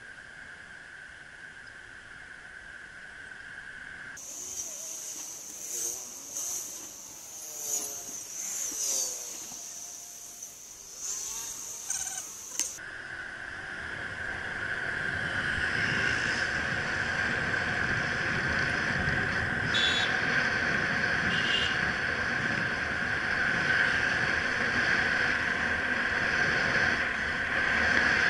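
Traffic and wind noise heard from a camera riding on a bicycle in city traffic, with a steady high whine throughout, growing louder in the second half. From about 4 to 13 seconds in, the sound changes to a stretch with sliding tones and several sharp peaks.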